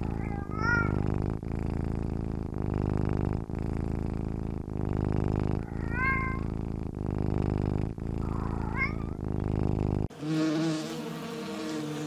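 Domestic cat purring in a steady rhythm that pauses about once a second with each breath, with short meows about half a second in, at about six seconds and near nine seconds. In the last two seconds it gives way to a honeybee buzzing.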